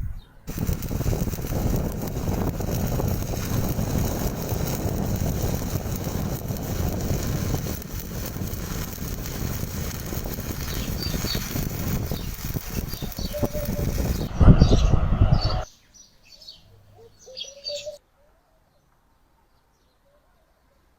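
Electric welding arc crackling and hissing steadily while a weld bead is laid. It ends in a louder, deeper burst and stops about fifteen seconds in.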